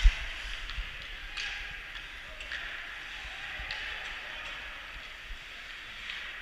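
Ice hockey play: a loud bang against the boards and glass right at the start, then the steady scrape of skates on the ice with a few sharp clacks of sticks and puck.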